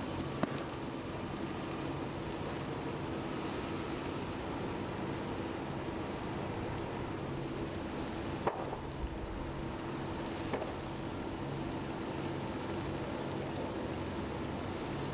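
Steady drone of fire-engine pumps running under the noise of a large blaze of burning pallets and buses. A few sharp pops stand out: one near the start and two more about two seconds apart past halfway.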